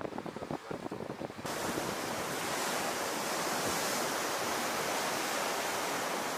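Wind buffeting the microphone over sea water rushing along a surfaced submarine's hull. About a second and a half in, it changes to a steadier, brighter rush of wind and water.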